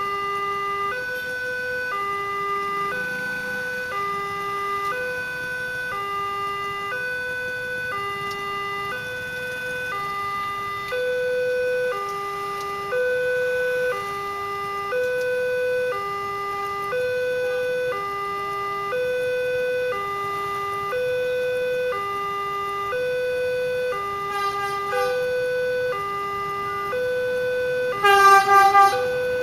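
Railway level-crossing warning alarm sounding, a two-tone electronic signal that alternates a lower and a higher tone about once a second, the sign that a train is approaching. About a second before the end a loud horn blast from the approaching train cuts in over it.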